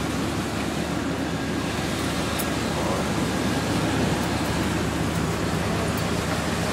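Car engine idling steadily, a constant low rumble under an even hiss.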